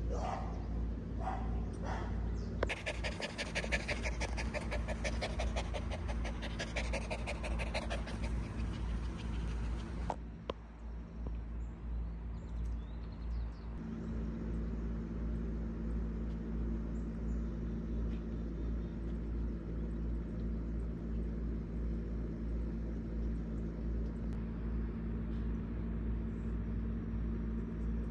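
A dog panting fast, with a few short whines at the start. After about ten seconds the panting stops and a steady low hum remains.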